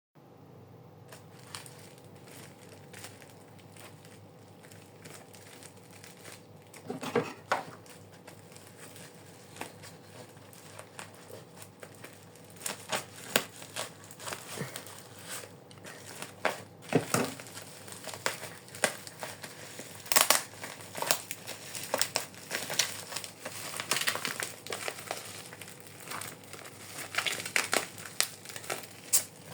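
Redmi Buds 6 packaging being handled and opened: irregular crinkling and crackling with sharp clicks, busier and louder in the second half.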